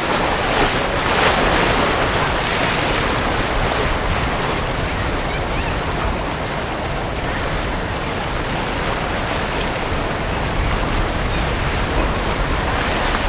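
Water rushing and splashing as a motor yacht's bow wake cuts through choppy inlet water, with wind buffeting the microphone. It is a steady wash of noise with no clear engine note, a little louder about a second in.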